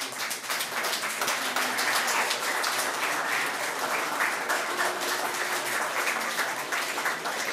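Audience applauding: dense, steady clapping from many hands that builds within the first second and holds throughout.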